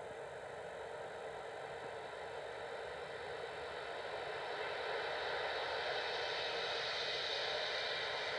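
Boeing 747's four jet engines at takeoff power as the airliner rolls down the runway: a steady rushing jet noise that grows louder about halfway through as the aircraft draws nearer.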